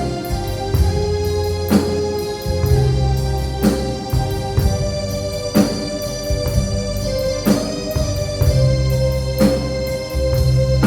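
Live band playing a slow song: an organ-voiced keyboard holds sustained chords over a bass line, with a drum kit striking a sharp hit about every two seconds.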